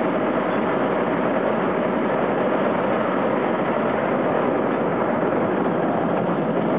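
Miniature ride-on railway train running along its track, heard from aboard a car: a steady, unbroken rumbling noise of the wheels on the rails and the train in motion.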